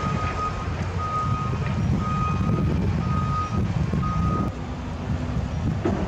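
A construction vehicle's reversing alarm beeping steadily about once a second, five beeps, stopping about four and a half seconds in, over a low rumble.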